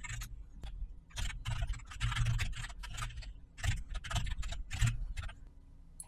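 Computer keyboard typing: a rapid run of keystrokes with a few brief pauses.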